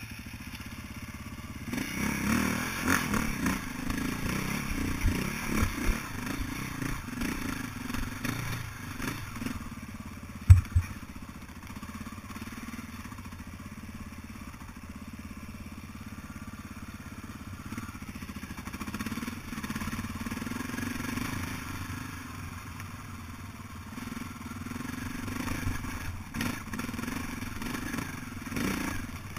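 Dirt bike engine running at low speed on a rough trail, swelling and easing with the throttle, with the bike clattering over rocks and one sharp knock about ten seconds in.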